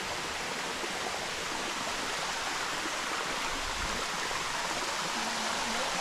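Waterfall water rushing and splashing, a steady even hiss with no let-up.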